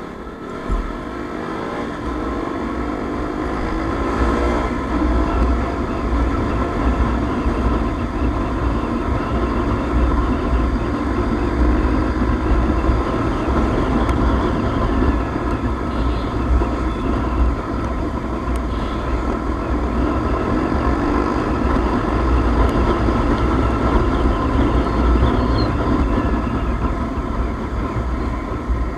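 Sport motorcycle being ridden, heard from a camera mounted on the bike: the engine runs under steady riding load, its pitch rising in the first few seconds as it pulls away, with heavy wind rumble on the microphone.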